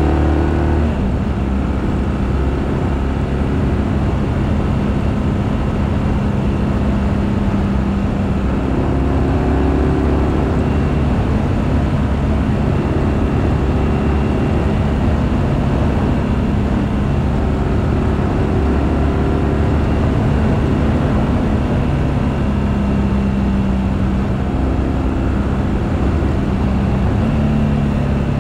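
BMW R1200GS flat-twin boxer engine running under way, its note rising and falling several times with the throttle.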